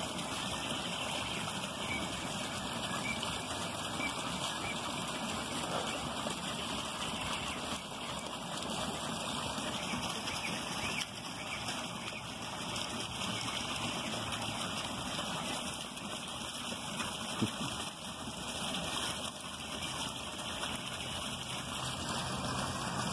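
Steady rushing of running water, continuous and even throughout.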